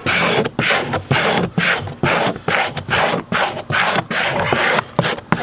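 Vinyl installation squeegee rubbing over a vinyl decal's transfer paper in quick repeated strokes, about three a second, pressing the decal onto a textured RV slide wall.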